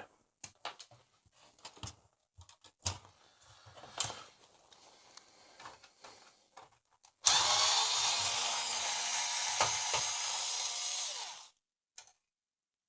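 Light clicks and taps of small metal parts being handled. About seven seconds in, an electric screwdriver runs steadily for about four seconds, undoing a chassis screw, then cuts off suddenly.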